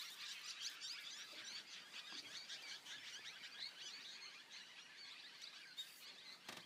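Faint chorus of many small birds, dense overlapping chirps and short twittering calls, with a single click near the end.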